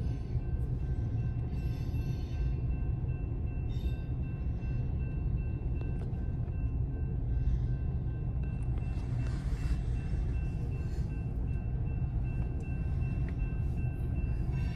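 Union Pacific freight train cars rolling through a grade crossing, a steady low rumble of wheels on rail heard from inside a car. Over it rings a steady high tone from the crossing signals.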